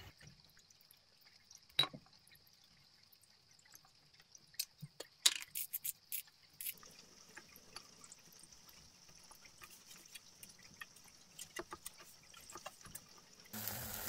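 Quiet handling: scattered light clicks and knocks as bread and seasoned chicken pieces are set on a wooden board and small items touch the wooden table, over a faint steady high hiss. Just before the end, chicken wings suddenly begin sizzling on a charcoal grill.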